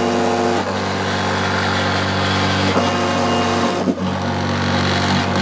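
Small DIY CNC mill cutting an opening in an electronics enclosure. The spindle runs steadily, and the stepper motors add a set of steady whining tones that drop out and come back a few times as the cutter moves through the pass.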